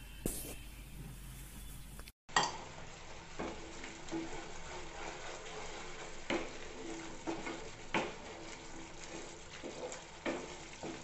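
Thick ginger and sugar-syrup mixture bubbling in ghee in a non-stick pan with a steady sizzle, stirred with a wooden spatula that scrapes the pan now and then.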